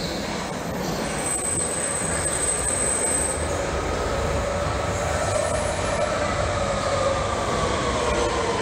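London Underground Central Line train (1992 Stock) running into the platform and braking: a steady rumble growing slightly louder, a high thin squeal for about two seconds early in the approach, then a whine that falls in pitch as the train slows.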